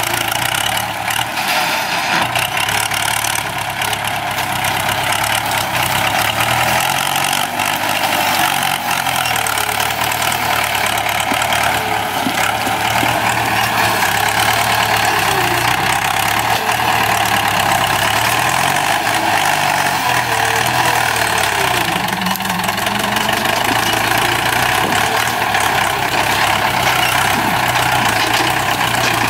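Ford 6610 tractor's four-cylinder diesel engine running steadily while the tractor works its sugarcane grab loader, the engine note rising and dipping slightly with the load.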